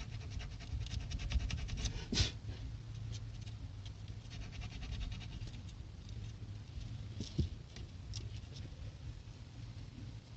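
Small plastic horn-button parts being worked by hand: a fast run of fine scratchy clicks for the first half, a sharper click about two seconds in and another about seven seconds in, over a low steady hum.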